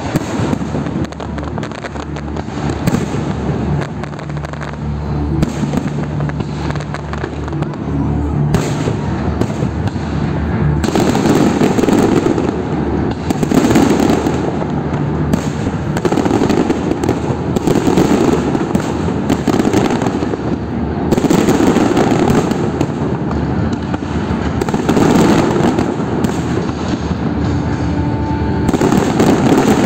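Fireworks display: aerial shells bursting with booms and crackle, coming in quick succession and growing denser and louder from about ten seconds in. Music from the show plays underneath.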